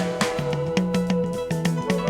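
Instrumental band music with no vocals: a repeating bass line moves between two low notes under a held melody line, with regular drum hits.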